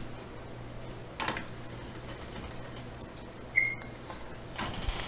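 Hand-cranked pasta machine in use, a sheet of polymer clay being thinned on setting five: a few faint clicks and knocks, with a short squeak about three and a half seconds in, over a low steady hum.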